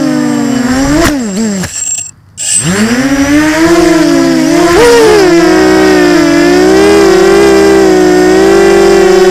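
FPV quadcopter's electric motors and propellers whining, heard from a camera on board the drone, the pitch rising and falling with the throttle. About a second and a half in, the throttle comes off: the whine sinks and nearly cuts out for a moment, then sweeps back up and holds fairly steady with small wobbles.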